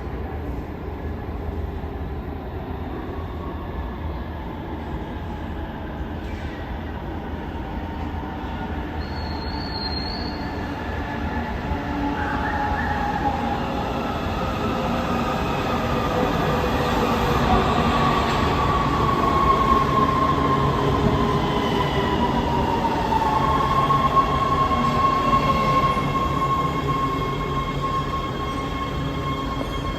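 LA Metro B/D Line subway train coming into the platform. Its rumble grows louder over about fifteen seconds, and a whine falls in pitch as the train slows. In the last few seconds a steady high squeal is heard from the wheels and brakes.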